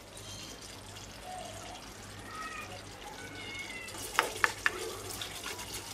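A silicone spatula stirring and turning hilsa steaks in a thick, simmering mustard curry in a frying pan: soft wet sloshing, with three quick, sharp knocks a little after the middle.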